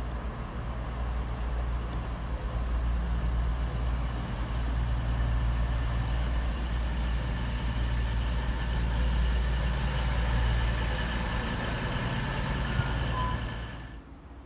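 Diesel train engine running, its low drone growing louder over the first few seconds and then holding steady with a few thin whining tones above it. It cuts off suddenly near the end.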